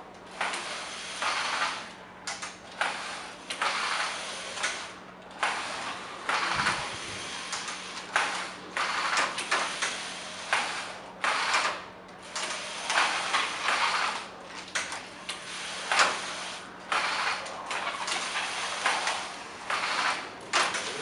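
Carriage of a flat knitting machine sliding back and forth across the needle bed, one pass about every second with short breaks between, over a steady low hum.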